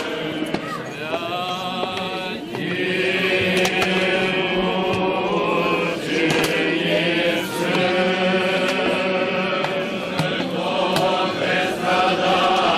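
A group of voices singing Russian Orthodox liturgical chant in long held notes during a water blessing service.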